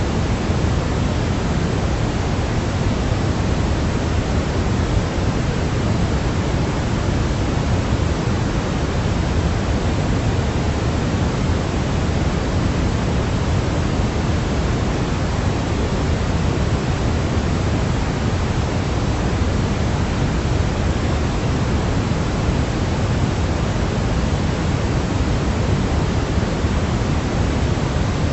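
Steady electronic white-noise sleep sound: an unbroken, even hiss, heavier in the low end, with no change throughout.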